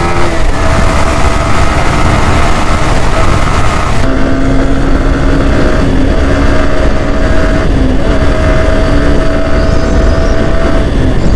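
Yamaha R15 V4's single-cylinder engine running at a steady cruise, with wind rushing over the microphone. The engine note stays level throughout, and the hiss of the wind drops noticeably about four seconds in.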